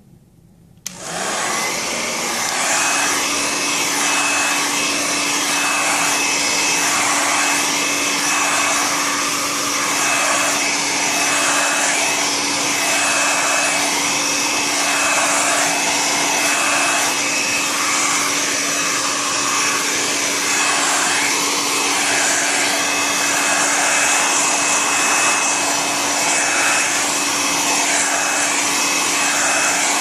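Hair dryer switched on about a second in, then running steadily with a constant whine, blowing hot air onto a sensor to raise its temperature. Its sound swells and fades slightly in a slow, regular cycle.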